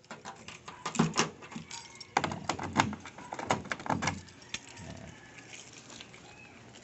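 Irregular metallic clicks and knocks as a bent-wire hook is worked into the small hole by the rear tailgate lock of a Toyota van, tapping against the door panel. The clicking comes in quick runs for about four seconds, then dies away.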